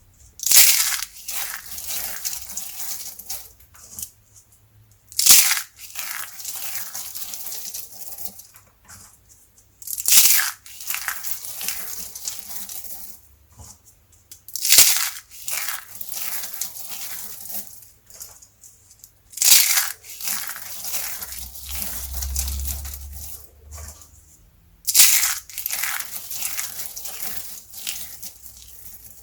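Dry carved soap being broken and crushed by hand: six loud cracks about every five seconds, each followed by a few seconds of crumbling as the pieces break up.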